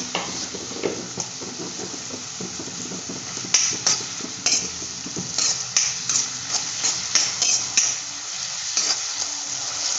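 A long metal spoon scraping and stirring chopped onion and tomato around a metal kadai, over a steady sizzle of hot oil. The strokes come as repeated scrapes and clinks, more often in the second half. The onions are already fried soft and the tomato has just gone in.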